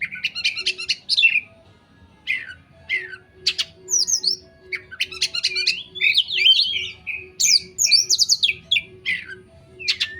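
Oriental magpie-robin (kacer) singing a varied song of whistled notes, slurred glides and quick stuttering trills, phrase after phrase with short pauses: a masteran recording of the kind played to train caged songbirds.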